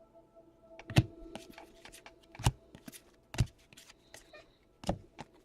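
Trading cards and their packaging being handled on a table: four sharp taps or knocks with light rustling and shuffling between them.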